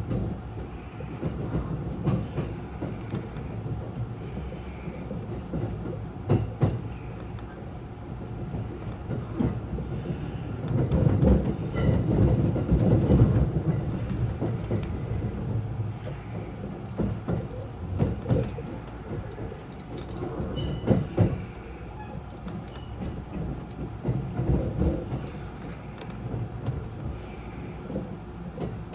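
Interior running noise of a JR West 683 series electric multiple unit, heard from inside the passenger car: a steady low rumble broken by irregular clicks of the wheels over rail joints. The noise swells louder for a few seconds midway.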